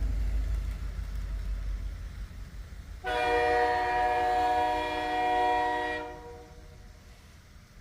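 A train horn sounds one long blast of several notes for about three seconds, after a low rumble that fades away.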